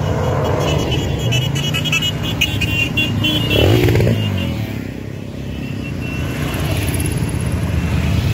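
Motorcycles and scooters riding past one after another at parade pace, their engines running steadily. One passes closest a little before halfway, louder, with its pitch rising and then falling as it goes by.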